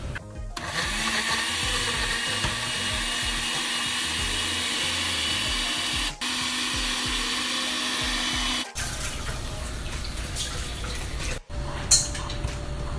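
Countertop blender running, churning a fruit smoothie: a steady motor hum under a dense whirring rush, cut off abruptly a few times and picking up again with a slightly different texture.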